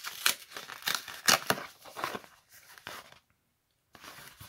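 Cardboard screen-protector package being handled and opened: a run of rough rustling and scraping strokes, with a short break about three seconds in.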